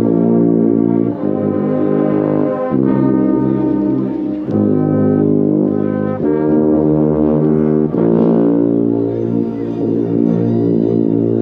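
Marching band brass playing long held chords, heard from among the marching tubas, with the low tuba notes loud and close. The chords change about every one and a half to two seconds.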